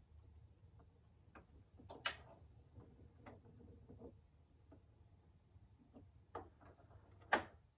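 Turntable stylus riding the lead-in groove of a vinyl record: a low rumble with scattered crackles and clicks, two sharper pops about two seconds in and near the end.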